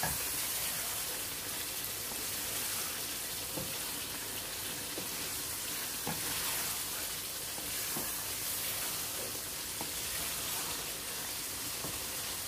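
Aubergine pieces sizzling as they fry in curry gravy in a non-stick wok, stirred with a wooden spatula, with a few knocks of the spatula against the pan.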